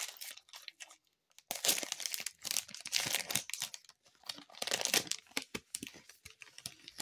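Foil wrapper of a Panini Chronicles baseball card pack crinkling and tearing in irregular bursts as it is handled and opened, with a brief pause about a second in.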